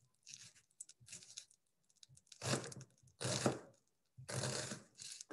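Chef's knife slicing and dicing a yellow onion on a cutting board: a run of crunchy cuts, small ones at first, then three longer, louder strokes in the second half.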